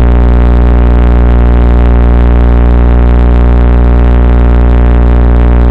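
Loud, steady electrical buzz with a deep drone and many evenly spaced overtones, picked up by a small onboard FPV camera's audio rather than by any moving part.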